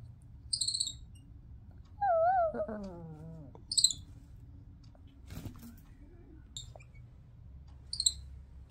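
Midas tamarin giving short, high-pitched warning chirps, one every two to three seconds, four in all. Between the first two chirps comes a louder, lower wavering whine that slides down in pitch, and a sharp click follows a little later.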